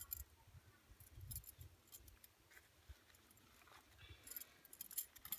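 Faint, scattered clinks and rustles of a bundle of small metal meat hooks being handled, with a cluster of clicks near the end.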